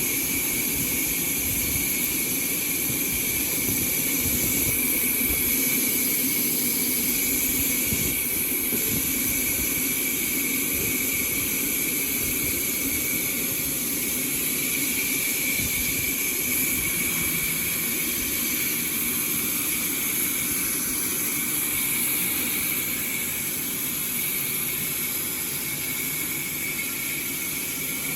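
Sawmill saw running through a large log: a steady high-pitched whine over the machine's running noise.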